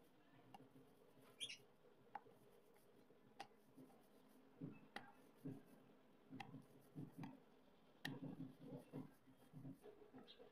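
Rolling pin rolling out a disc of slate-pencil clay dough on a powder-dusted board: faint scraping rolls in back-and-forth strokes, with small sharp clicks every second or so.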